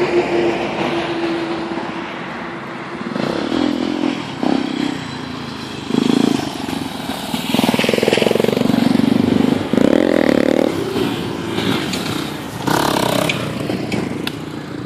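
Off-road vehicle engine revving in repeated surges, rising and falling in pitch, with clattering and scraping over the rough ground.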